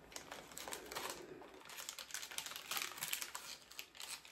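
Packaging crinkling and rustling as it is handled and opened: a soft, irregular run of crackles and clicks.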